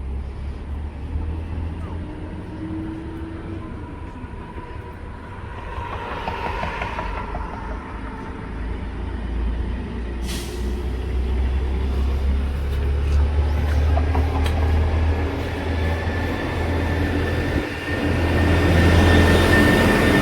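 A heavy vehicle's engine running with a steady low rumble, getting louder over the last few seconds, with a sharp click about ten seconds in.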